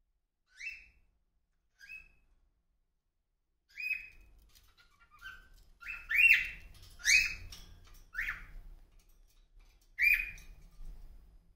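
Pet parrot giving a string of about nine short, sharp calls, two faint ones at first, then louder and closer together from about four seconds in.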